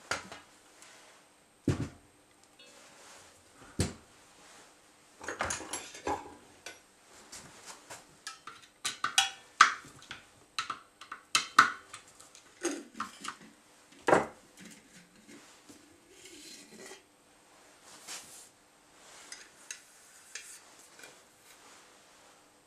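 Metal parts of a thermomechanical generator (a Stirling-type engine) being handled as it is taken apart: irregular clinks, clatters and knocks of metal on metal, thickest and loudest about halfway through.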